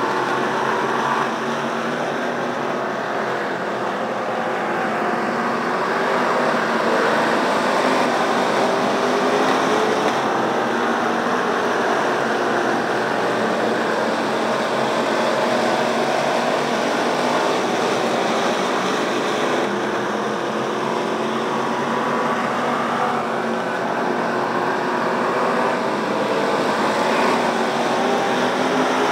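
A pack of pure stock race cars running laps on a dirt oval. Several engines run at once, their pitch rising and falling as the cars lift off and accelerate through the turns.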